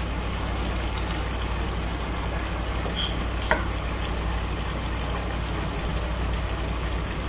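Chicken, tomatoes and spices sizzling steadily in a wok over a gas flame, with a constant low hum underneath. One short click about three and a half seconds in.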